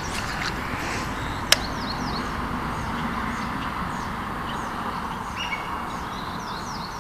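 Small birds chirping repeatedly over a steady outdoor background hiss, with one sharp click about a second and a half in.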